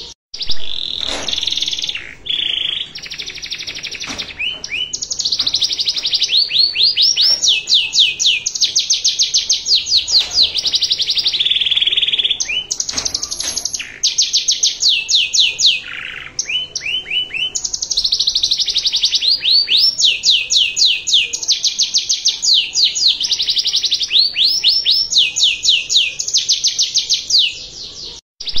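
Domestic canary singing a long, fast song made of rapid trills and rolls. Each phrase is a quick run of repeated high notes or sweeping notes, changing to a new phrase every few seconds. There are a few short pauses.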